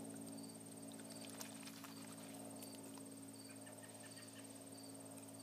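Insects, crickets by the tags, trilling steadily high up with soft repeated chirps, over a steady low hum. Faint small splashes come from hands kneading sumac berries in a bowl of water.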